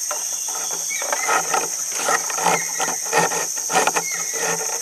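Insects droning steadily and high in the riverside forest, with irregular short knocks and rustles over it.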